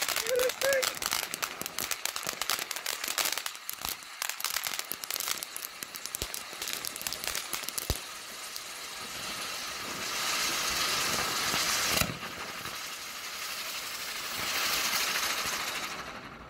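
Dominator HELIX spinning colour fountain firework burning: a dense crackling spray of sparks for the first half, then a steady hiss that swells twice, with a sharp pop about twelve seconds in, dying away near the end.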